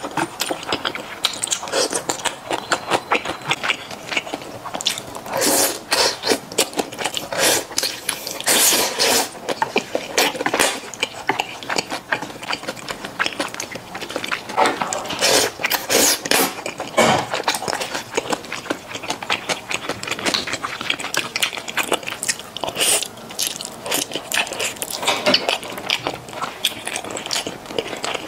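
Close-miked eating sounds: a person chewing and slurping saucy fried rice noodles, with a dense run of small wet mouth clicks and smacks and a longer slurp every few seconds.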